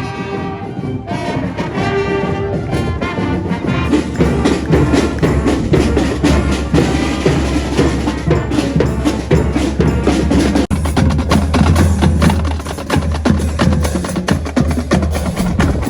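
Marching band playing: brass and reed instruments hold notes at first, then drums, including a bass drum, beat steadily under the band.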